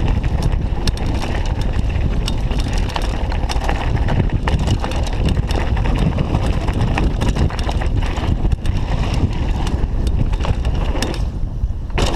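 Downhill mountain bike riding fast over a dirt and gravel trail, heard from a chest-mounted camera: a steady rush of wind on the microphone and tyre noise, with constant rapid clicks and rattles from the bike bouncing over the rough ground.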